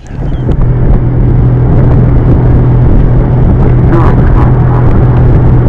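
Small boat motor running steadily and loudly, a low even hum over rushing wind and water noise, cutting in abruptly at the start.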